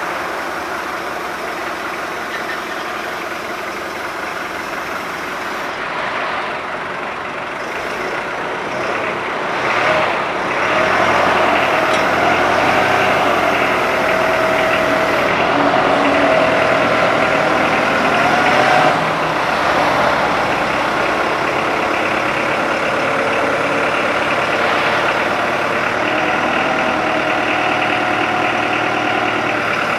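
Forklift engine running while the paper roll clamp attachment is worked, rotating the clamp arms. The sound grows louder about a third of the way in, and a steady whine runs over it for several seconds before easing back to a steady run.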